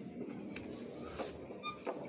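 Faint background ambience with a few soft clicks and short, high chirps.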